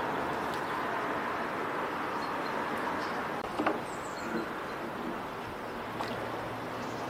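Steady outdoor background noise with a couple of light clicks, one about halfway through and one near the end.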